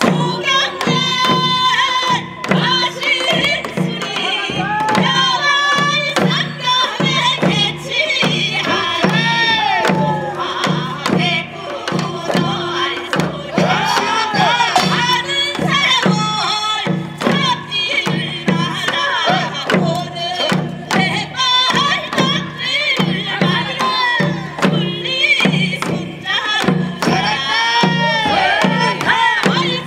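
Korean pungmul folk band playing: drums keep a steady beat about twice a second under a melody that swoops up and down, with sharp strikes on top.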